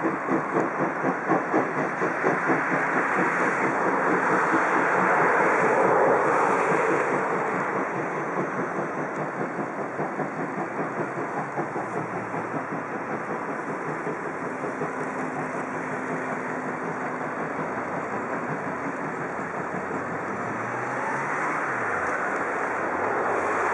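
DR class 52 two-cylinder steam locomotive working with a steady rhythm of exhaust chuffs. It grows a little louder, then gradually fades as the train draws away.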